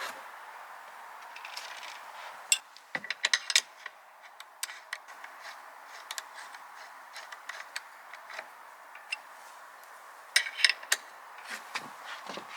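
Bicycle pedals being fitted to the crank arms: scattered light metallic clicks and ticks of tool and pedal against the cranks, in two busier bunches, about three seconds in and again around ten to eleven seconds.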